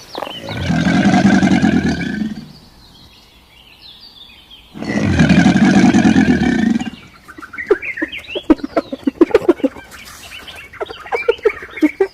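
Two long, loud animal calls, each about two seconds, then a busy run of quick high chirps and clicks in the second half.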